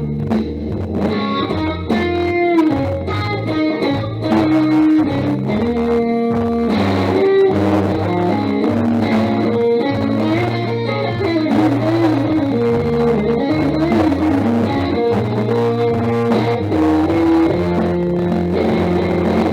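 Guitar music: a melody with sliding, bent notes over a changing bass line.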